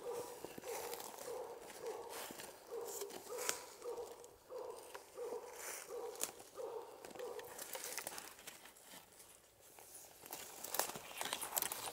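Footsteps crunching and rustling through dry fallen leaves, with a dog barking steadily about twice a second that stops a little past the middle.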